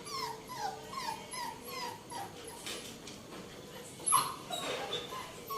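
Puppies whimpering in a string of short, high, falling cries, about two a second, with one louder cry about four seconds in.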